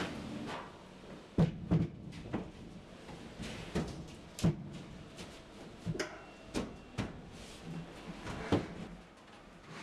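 Knocks and thuds of a large OSB board being handled and set into place against a wooden support frame inside a steel shipping container: about nine irregular knocks, the loudest pair about a second and a half in.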